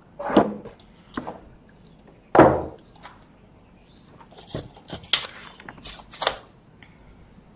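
Metal sliding door roller hardware being handled and set down on a tabletop: a scatter of short metallic clinks and knocks, with a heavier knock about two and a half seconds in.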